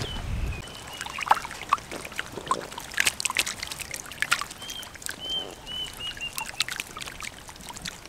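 Short, repeated bird chirps, a few at the start and a quick run of about six in the middle, over scattered irregular clicks and a faint trickling of water.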